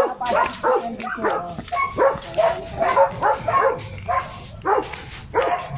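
Dogs barking over and over, about two to three barks a second.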